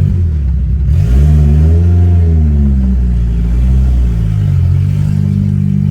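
Chevrolet Celta's engine pulling under acceleration: the engine note rises about a second in, then falls back and settles to a steady drone.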